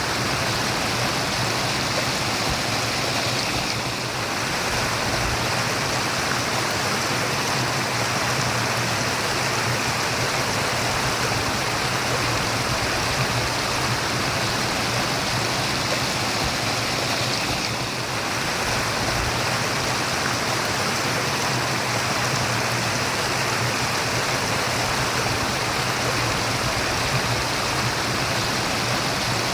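Water running and babbling steadily in a stream, with an even, unbroken rushing murmur.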